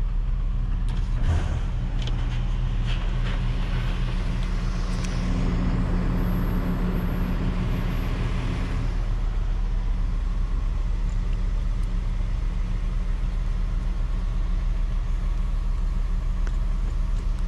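Box truck engine running at low speed while the truck reverses, heard from inside the cab: a steady low drone, with a few light knocks in the first three seconds.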